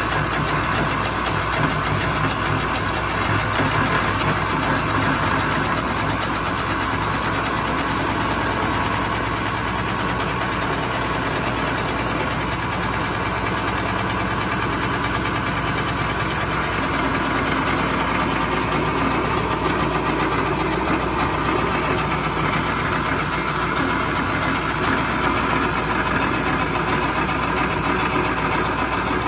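Duplicating lathe running steadily: the motor hums while the rotating cutter head cuts a spinning wooden baseball bat blank, a continuous rush of wood being shaved away.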